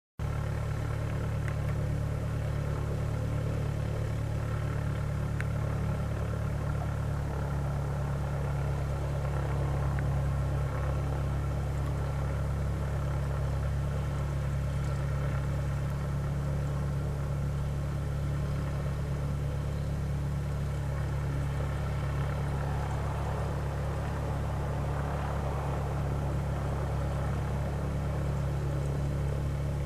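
An engine idling steadily, a low continuous hum, with a slight change in its tone about seven seconds in.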